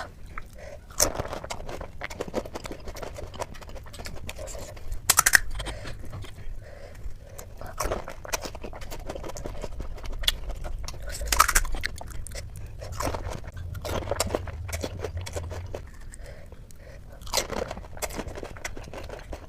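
Crunching and chewing of pani puri: crisp puri shells cracking between the teeth in a run of irregular bites, with wet chewing in between.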